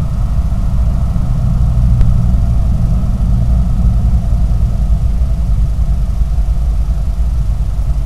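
Steady low rumble with a faint hum above it, and a single faint click about two seconds in.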